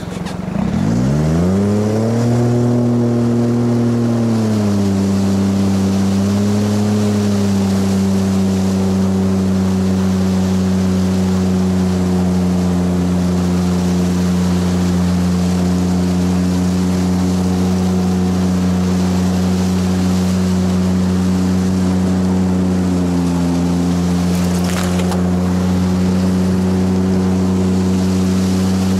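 Boat's outboard motor revving up over the first couple of seconds, then running at a steady cruising speed, with a brief dip in engine speed about three-quarters of the way through.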